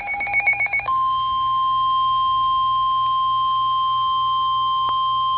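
Emergency Alert System alert: the end of the SAME digital header, a rapid buzzy data warble, cuts off about a second in. It is followed by the steady 1050 Hz NOAA Weather Radio warning alarm tone, a single loud high beep held without change.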